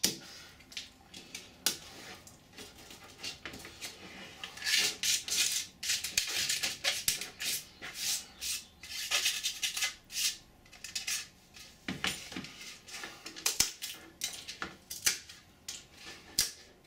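Hands working a 3D-printed ABS plastic mould to free a moulded foam part: irregular scraping and rubbing with sharp clicks and knocks of the plastic.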